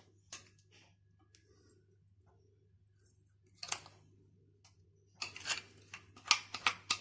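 Steel bowl and spoon clinking and scraping against a pressure cooker pot as coconut paste is tipped in. There is a tap at the start and a short scrape about three and a half seconds in, then a quick run of sharp clinks and scrapes over the last two seconds.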